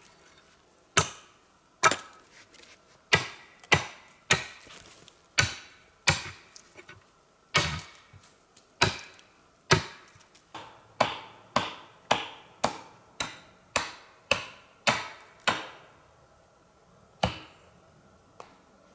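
Wood being chopped: a run of sharp blows, roughly one or two a second. They stop about three-quarters of the way through, with one last blow after a pause.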